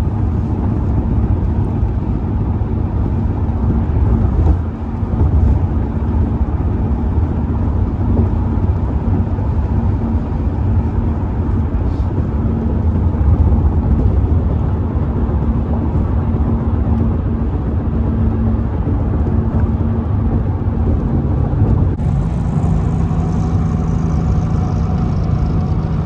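Road and engine noise inside a moving car's cabin: a steady low rumble with a constant drone. About 22 seconds in the drone drops to a lower pitch and a faint hiss rises.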